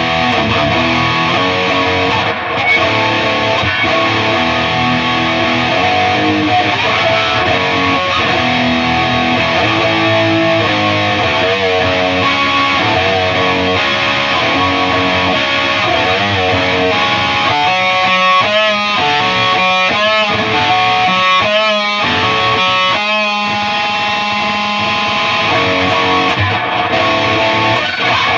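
Distorted electric guitar played through a Peavey 6505 MH amp head into a Mesa 2x12 speaker cabinet: held notes and chords, with wavering vibrato notes for several seconds past the middle.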